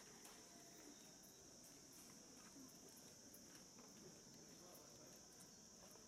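Near silence with a faint, steady high-pitched insect chorus.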